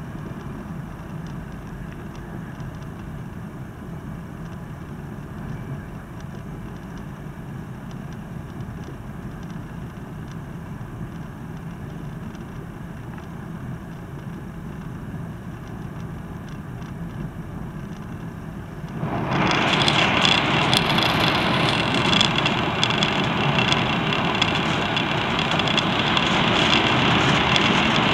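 Tohoku Shinkansen running at speed, heard from inside the passenger cabin as a steady rumble. About two-thirds of the way through, the noise jumps suddenly much louder and hissier as the train enters a tunnel, and stays loud.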